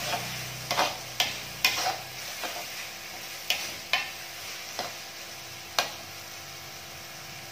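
Metal spatula scraping and clinking against a metal wok as a thick chili paste with petai beans is stirred, over a soft sizzle of frying. The irregular clinks stop about six seconds in.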